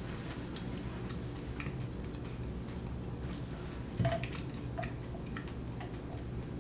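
Close-miked chewing of deep-dish pizza crust: small wet clicks and squishes from the mouth over a steady low hum, with one soft thump about four seconds in.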